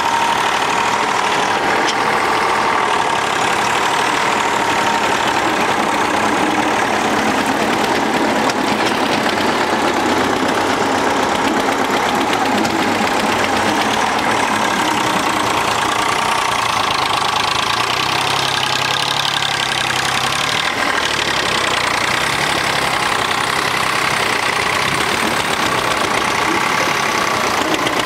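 Two Eicher tractors, a 242 and a 45 hp 485, running hard under load as they pull against each other on a tow rope. Their diesel engines make a loud, steady, unbroken noise.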